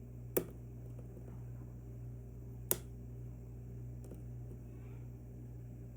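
Two sharp clicks, about two seconds apart, from a hook pick working the pin stacks of an Assa Twin V10 lock, over a low steady hum.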